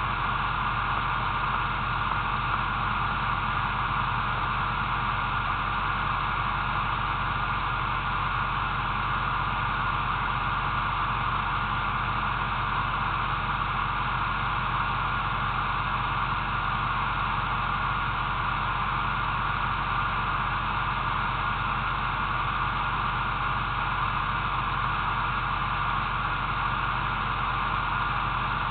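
Steady, unchanging hiss with a faint low hum underneath, like a cheap camera's recording noise.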